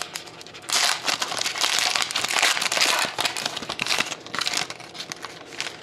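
Foil trading-card pack (2011-12 Panini Certified hockey) being torn open and crinkled by hand, a dense crackling rustle strongest in the first few seconds, then lighter handling.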